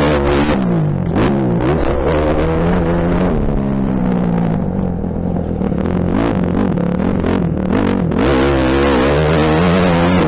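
Motocross dirt bike engine, heard close up from a helmet camera, revving up and falling away several times as the throttle is opened and shut over the jumps and turns. It settles to a lower, quieter stretch around the middle, then climbs hard again about eight seconds in.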